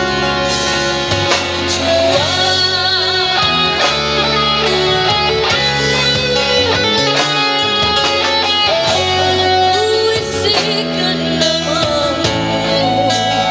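Live band music from electric guitars, bass guitar, acoustic guitar and a drum kit in an instrumental passage. A girl's singing comes back in near the end.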